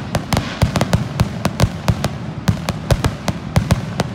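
Aerial firework shells bursting in a dense barrage: a quick, uneven string of sharp bangs and crackles, about five a second.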